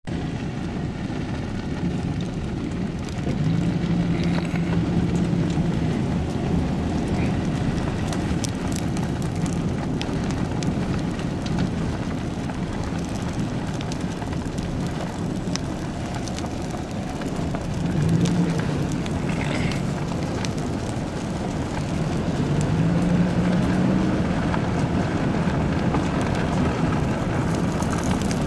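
Steady rumble of a vehicle with wind noise, heard from inside the vehicle as it passes a burning grass and hay fire, with scattered faint crackles.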